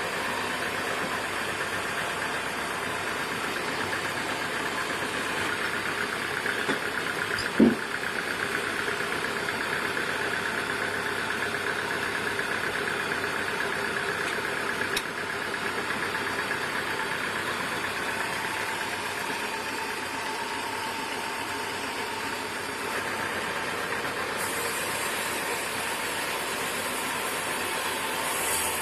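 Sawmill machinery running steadily, with one loud knock about eight seconds in.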